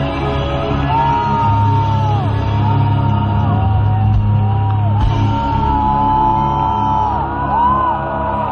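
Live rock band playing loudly in a large hall, heard from inside the crowd, with crowd voices shouting over the music.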